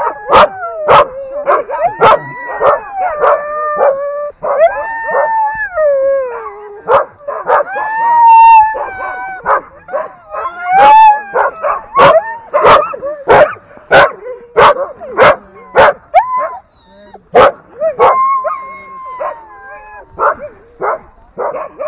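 A team of harnessed sled dogs barking sharply over and over, mixed with long wavering howls and yelps. This is the clamour of dogs hitched to the gangline and eager to run.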